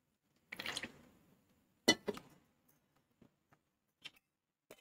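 Milk being poured into a stainless-steel mixer jar, a short splashing burst, followed about two seconds in by a sharp metallic clink that rings briefly, and a few faint taps.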